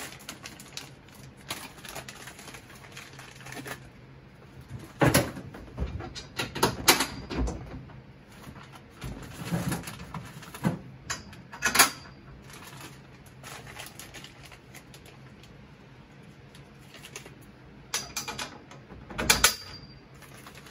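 Irregular metallic clicks and clacks of the roll bar kit's grade 5 bolts being handled and set into the holes of the roll bar's steel base plates and the floor pan. A few louder clacks ring briefly, the loudest about 12 seconds in and near the end.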